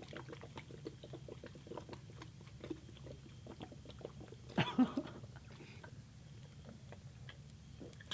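A man gulping juice straight from a bottle in quick, repeated swallows, with a brief louder throat sound about halfway through.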